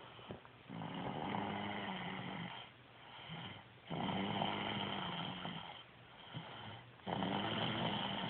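A baby snoring with deep, grown-up-sounding snores: three long snores about three seconds apart, each lasting about two seconds.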